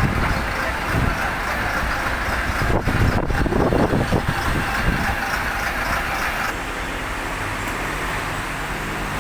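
Heavy machinery running, a steady mechanical din with a stretch of heavier low rumbling and knocking in the middle.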